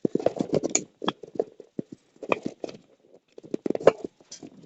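Irregular clicks, knocks and light clatter of a desktop computer case and its loose parts being handled and set down, with a few sharper taps.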